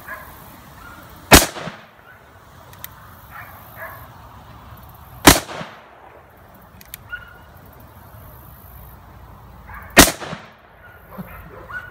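Three gunshots from a Ruger Super Blackhawk .44 single-action revolver, about four to five seconds apart, each a sharp crack with a short echo trailing it.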